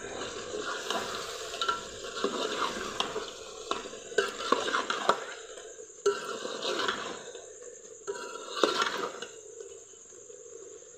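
A metal ladle stirring chicken curry in a metal pot on a wood-fired clay stove, scraping and clinking against the pot in several short bouts.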